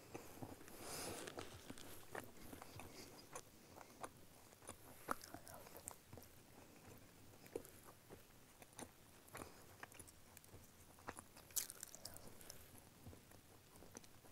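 A person chewing a piece of matzah close to the microphone: quiet, irregular crisp crunches.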